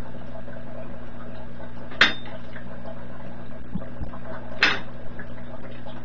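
Wire strippers snapping insulation off thin hookup wires: two sharp snaps about two and a half seconds apart, with small handling noises between, over a steady low hum.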